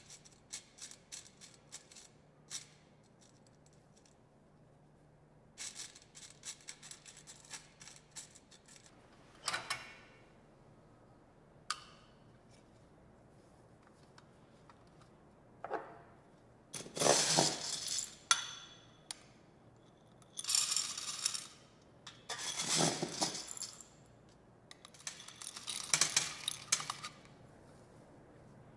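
Raw coffee beans rattling against metal: first a light patter of clicks as they are stirred by hand in a mesh sieve, then several louder rattling bursts, about a second each, as they are poured and shaken in a small stainless-steel roasting box.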